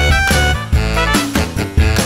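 Background music with a steady beat and an instrumental melody.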